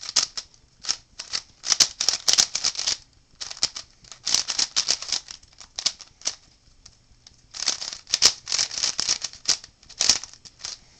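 Freshly assembled DIY Rubik's cube being turned fast by hand, its plastic layers clacking in quick flurries of turns with short pauses between them.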